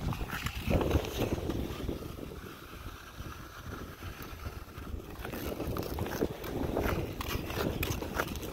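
Ice skate blades striding and gliding on natural lake ice, with irregular scrapes and clicks from the strokes over a steady low rumble. The strokes ease off into a quieter glide in the middle, then pick up again near the end.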